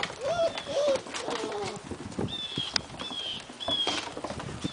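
Five-week-old long-coat German Shepherd puppies moving about on a porch floor, their claws clicking and pattering. There are two short whines in the first second and several brief high squeaks in the middle.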